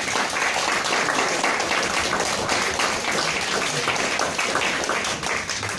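Theatre audience applauding, the clapping starting to fade near the end.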